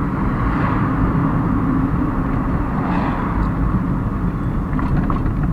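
Steady rumble of a car on the move, heard from inside the cabin: engine, tyre and wind noise.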